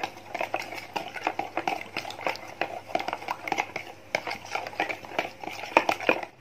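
Metal spoon stirring and beating egg in a plastic bowl, a quick, uneven run of clicks and scrapes against the bowl. It stops abruptly at the end.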